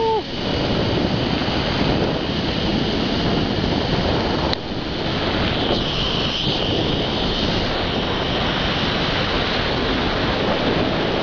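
Steady rushing of wind on the microphone of a camera carried at speed down a zipline.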